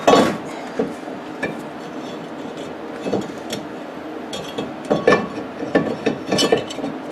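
Steel brake rotor being handled and slid back onto the wheel hub: irregular metal clinks and knocks with some scraping, in several clusters.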